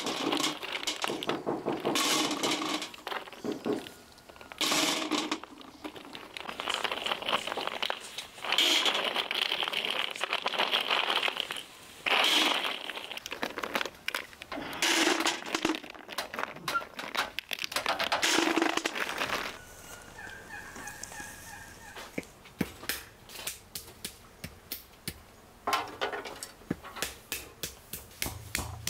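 Whole walnuts in their shells clattering against a metal basin and dropping into a metal bucket, in a string of rattling bursts. From about two-thirds of the way in comes a run of short, sharp taps as walnuts are cracked on a wooden block.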